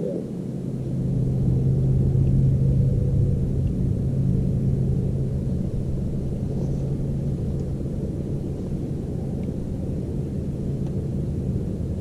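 Bass boat's electric trolling motor running with a steady low hum, swelling about a second in.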